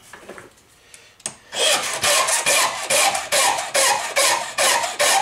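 Flat steel hand file drawn back and forth across the mouth of a brass .38 Special case held in a reloading press, filing it down to .38 S&W length. Rasping strokes, about two a second, begin after a quiet second or so.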